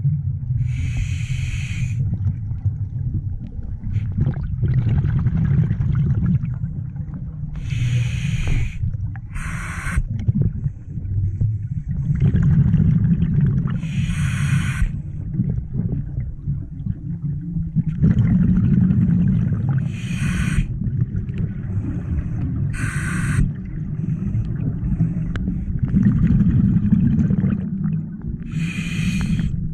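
Scuba regulator breathing underwater: about seven hissing, bubbling bursts a few seconds apart, over a steady low rumble.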